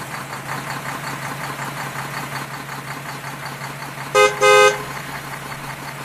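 Truck engine sound effect running steadily, with two horn honks about four seconds in, the second a little longer; the honks are the loudest thing.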